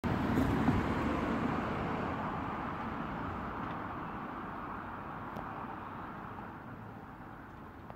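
Rumble of a road vehicle moving away, loudest at first and fading steadily.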